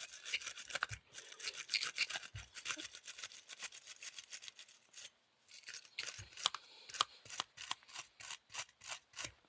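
A wire battery-terminal cleaning brush scrubbing a lead battery post in quick back-and-forth strokes, about five a second, with a short pause about five seconds in. It is scouring the dull black corrosion coating off the ATV battery's terminal.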